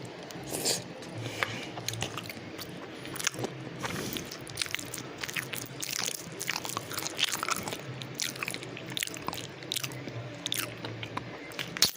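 A person chewing and eating food close to the microphone: many irregular short clicks and smacks of the mouth, with a faint steady hum underneath.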